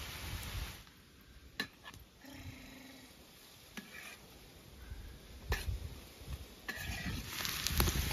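Onions, green peppers and meat sizzling in oil in a wide metal pan, with a metal skimmer stirring and clinking against the pan a few times. The sizzling grows louder near the end.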